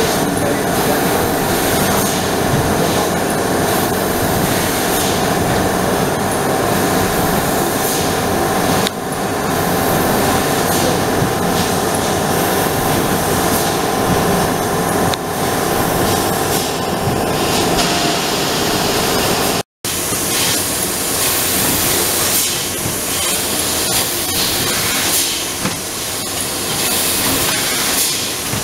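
Trumpf L2530 4 kW CO2 laser cutting machine running while cutting sheet metal: a steady mechanical hum with a few held tones, overlaid by the hiss of the cutting-head assist gas. The sound cuts out for an instant about two-thirds of the way through, then resumes with a stronger, brighter hiss.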